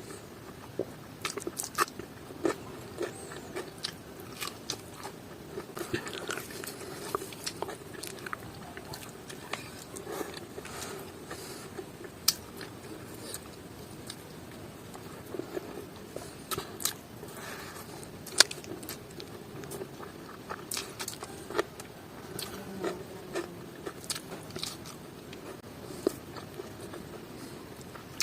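Close-miked eating: a person chewing mouthfuls of pork and rice, with irregular sharp clicks and smacks from the mouth throughout.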